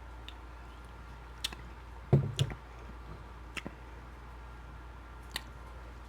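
Close-miked eating sounds: scattered sharp, wet mouth clicks, with two short low thumps in quick succession about two seconds in, over a steady low hum.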